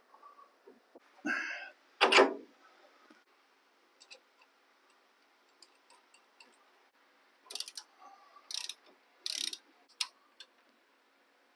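Two knocks of metal parts about a second and two seconds in, the second the louder. Then a ratchet wrench clicks in four or five short runs as the castle nut on the spindle's ball joint is tightened.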